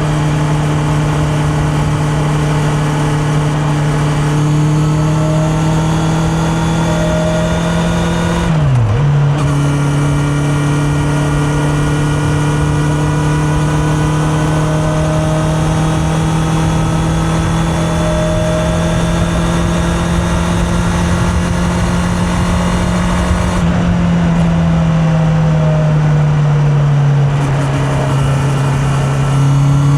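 Honda CB650R's inline-four engine running while riding along, heard from a microphone in the rider's pocket. The revs climb gradually, break off briefly about nine seconds in as the rider shifts gear, then hold steady; near the end the throttle closes, the revs fall, and they pick up again.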